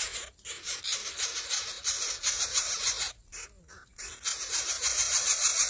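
Nestlings giving harsh, raspy begging calls in the nest: a fast run of pulses, about ten a second, that breaks off briefly near the start and for most of a second about three seconds in.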